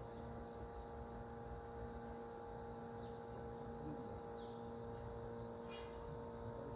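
A steady low hum, with two short, high chirps that fall in pitch a little over a second apart.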